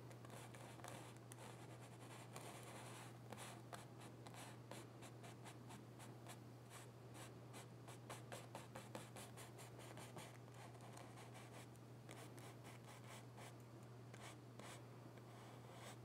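Faint scratchy swishing of a small brush laying oil paint onto a canvas in many short, light strokes, over a low steady hum.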